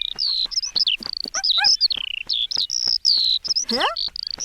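Cartoon oriole chirping in a quick run of short, repeated chirps that fall in pitch, with a rising whistle-like slide near the end.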